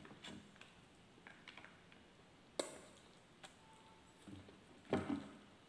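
Close-up eating sounds: scattered mouth smacks and clicks from chewing roast pork, with fingers picking at the meat on a banana leaf. A sharp click comes about two and a half seconds in, and the loudest cluster of smacks about five seconds in.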